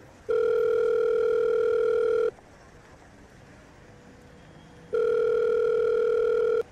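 Telephone ringback tone: two long rings of a steady tone, each about two seconds with a pause of about two and a half seconds between, as a call is placed again after the line dropped and waits to be answered.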